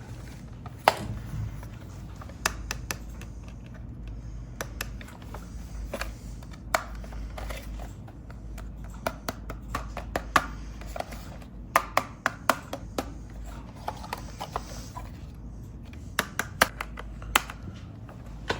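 Hands handling a toy: irregular sharp clicks and taps, coming thickest in the second half, over a steady low hum.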